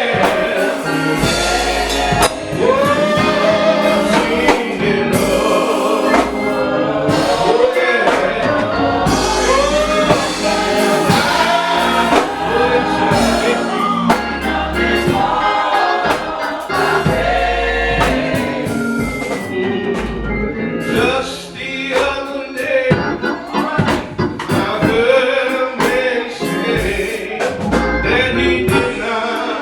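Gospel choir singing with band accompaniment and drums.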